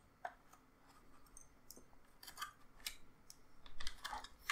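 Faint scattered clicks and scrapes of a graphics card being handled and pushed into the PCIe x16 slot of an external GPU dock, with a denser run of small clicks near the end.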